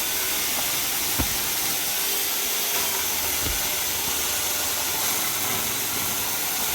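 Steady hiss with two dull thumps, one about a second in and another about two seconds later.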